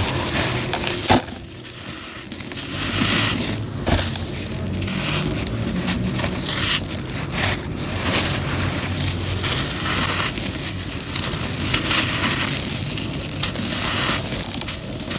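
Homemade cement crunching and crumbling as it is crushed: a continuous gritty crackle broken by sharp snaps, the loudest about a second in and another about four seconds in.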